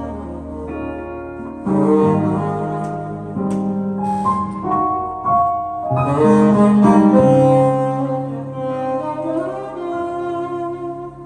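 Saxophone playing sustained melodic phrases over keyboard accompaniment with held bass notes, during a sound check.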